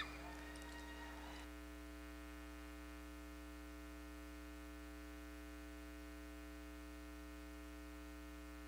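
Faint, steady electrical mains hum, an unchanging low buzz.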